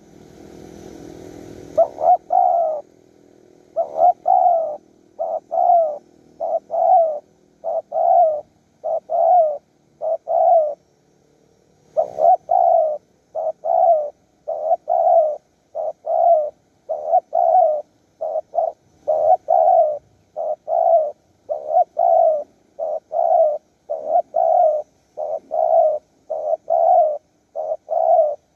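Spotted dove cooing over and over, loud and close: low, mellow coos in groups of two or three, repeated steadily. A brief rustle sounds in the first two seconds.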